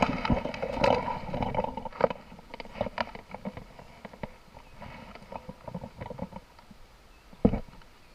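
Irregular knocks, taps and rustling, densest in the first two seconds and sparser after, with one loud thump near the end.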